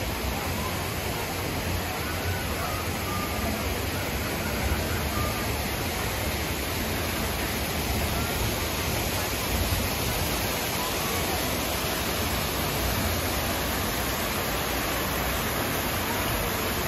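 Steady rushing of waterfalls, with faint, scattered voices underneath.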